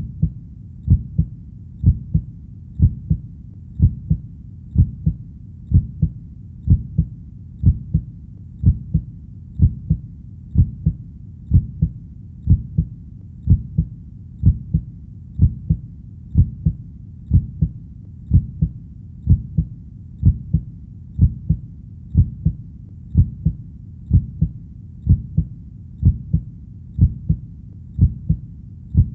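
Heartbeat: a steady, low double thump (lub-dub) repeating about once a second.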